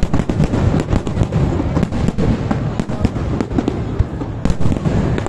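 Aerial firework shells bursting in a dense barrage: many sharp bangs in quick succession over a continuous low rumble.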